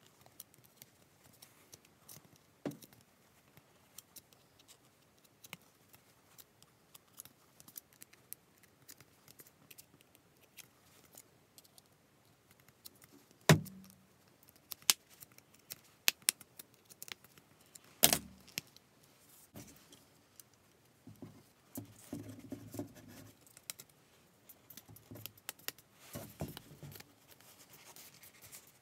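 Small scattered clicks and taps of a bent wire hook working through the holes of a plastic racket grommet strip, with two louder knocks in the middle. Softer rubbing and handling of the racket frame near the end.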